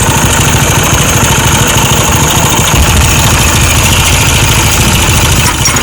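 Motorcycle engine idling with a steady, loud mechanical rattle. The speaker calls it a very bad noise, and traces it to a worn timing chain and worn chain guide rubbers.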